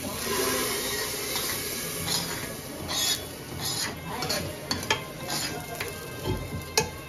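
Hot mustard-oil tadka with fried onion sizzling as it is tipped from a kadai into a pot of dal, then a metal spoon scraping the last of it out of the kadai in a run of short strokes.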